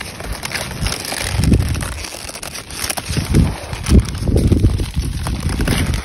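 Wind buffeting the microphone in low gusts, over the rustle and crackle of sea kale leaves handled by a plastic-gloved hand.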